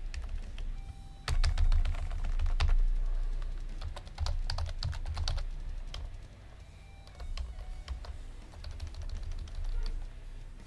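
Typing on a computer keyboard: irregular keystrokes in short bursts, with a lull of about a second a little past the middle.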